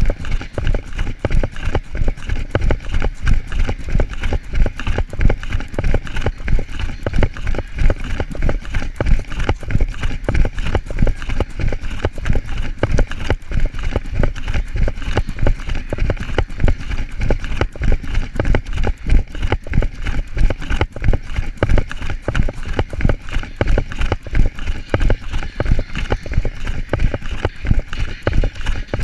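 A runner's footsteps on pavement at a fast pace, about three strides a second, each stride jolting the carried camera with a low thump.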